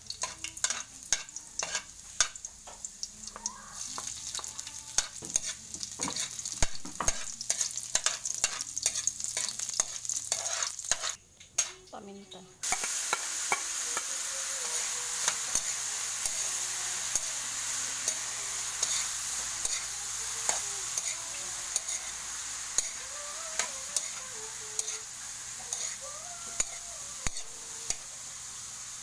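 Garlic sizzling in oil in a metal wok, with a spatula scraping and stirring against the pan in quick clicks. About twelve seconds in, after a brief lull, the sizzle turns louder and steadier as diced silk squash fries and is stirred, with occasional spatula scrapes.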